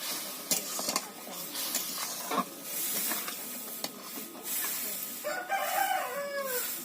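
A rooster crowing once, about five seconds in: a call of about a second and a half that drops in pitch at the end. Before it there is a steady hiss with scattered clicks and knocks.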